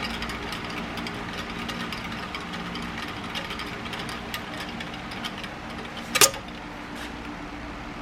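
Small mechanism running with a steady low hum and many faint, irregular ticks and clicks, with one much louder sharp click about six seconds in.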